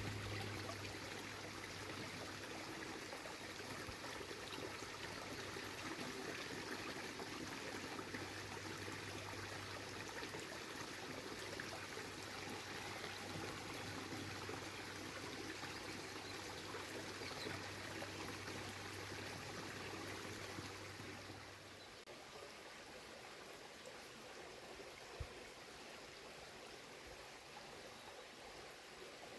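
Water of the Bayehon stream rushing and splashing over its rocky cascade, a steady even rush. About three-quarters of the way through it turns a little quieter and loses its low rumble.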